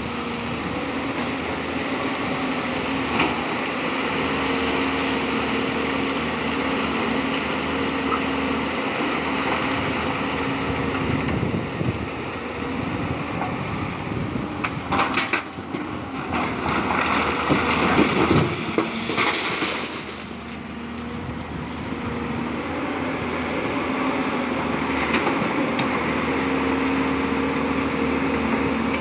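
Tata Hitachi 200 hydraulic excavator's diesel engine running steadily under load. About halfway through, a few seconds of louder scraping and rattling as the bucket works through broken rock.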